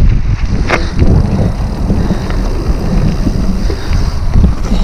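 Mountain bike riding a rough, rocky trail: wind buffeting the camera microphone over the rumble of the tyres, with a couple of sharp knocks from the bike in the first second.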